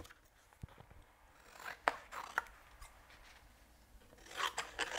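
Small scissors snipping through waterslide decal paper. There are a few separate cuts about two seconds in, then a quicker run of snips starting just after four seconds.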